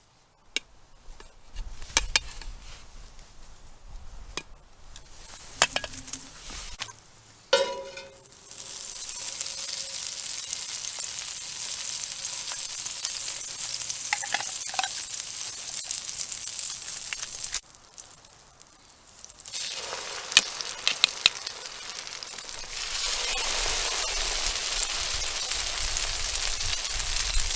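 French toast frying in a cast iron skillet: a steady sizzle that starts about eight seconds in, drops out for a few seconds in the middle and comes back near the end. Before and between the sizzling, a utensil knocks and clinks against the pan, with one ringing metal clank just before the sizzle begins.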